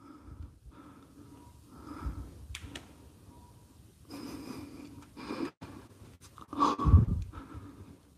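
A person breathing audibly close to the microphone, four or so soft breaths. The loudest comes near the end together with a low bump.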